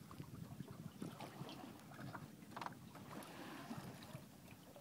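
Water washing and lapping along the hull of a small sailboat under way, over a low rumble, with one short knock about two and a half seconds in.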